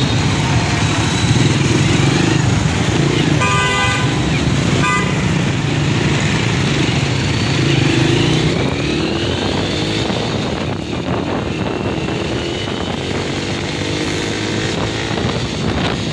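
Ride-along on a Honda Wave–type underbone motorcycle in city traffic: its small engine running steadily, rising in pitch as it speeds up about eight seconds in, over road and traffic noise. A horn honks twice about four seconds in, a longer honk and then a short one.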